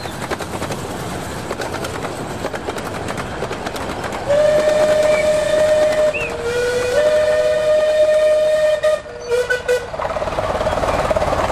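Model trains running past with a steady ticking rattle of wheels on the track. About four seconds in a steam locomotive whistle sounds, two tones for about five seconds, ending in a few short toots.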